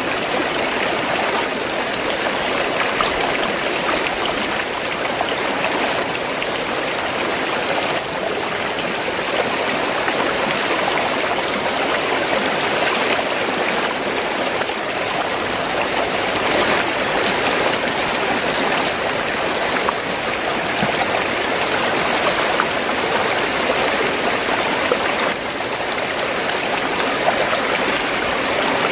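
Fast-flowing stream water rushing and gurgling steadily.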